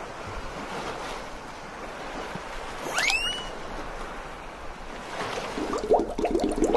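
Ocean waves washing steadily, with a short rising whistle about three seconds in and a quick run of ticks near the end, as a fishing rod is cast and worked.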